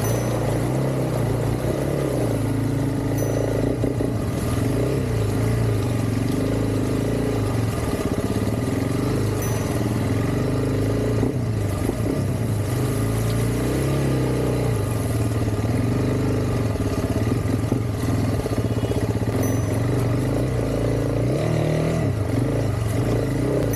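Honda CRF300 Rally's single-cylinder engine running as the motorcycle is ridden through deep mud, its revs rising and falling without a break.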